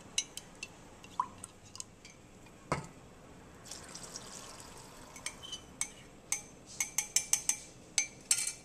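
Clinks of a stirrer against a glass mug of cornstarch slurry, a dull knock, then a wire whisk ticking quickly against the sides of a metal saucepan of sauce near the end.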